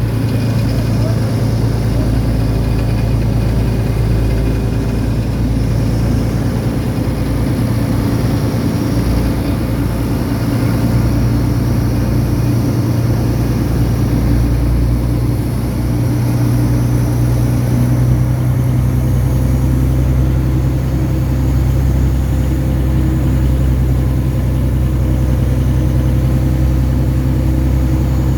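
An engine running steadily at an even speed, a low constant drone.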